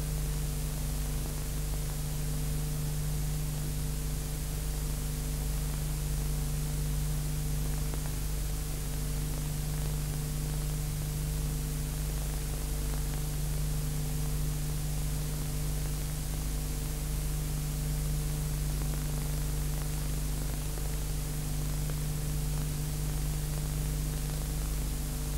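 Steady hiss with a low electrical hum under it, unchanging: the background noise of an old analogue video recording, with no music or speech.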